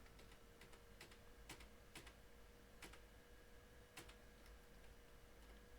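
Faint computer clicks, about six, irregularly spaced, over near-silent room tone with a faint steady hum.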